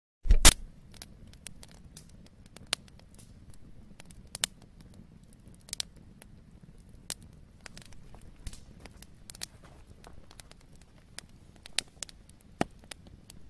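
Irregular light clicks and taps of a weighing scale being handled and worked on, with a louder knock just after the start and another near the end, over a faint low hum.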